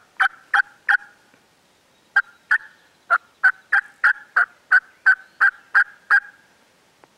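Turkey yelps: three sharp yelps, a short pause, then a steady run of about a dozen yelps at roughly three a second.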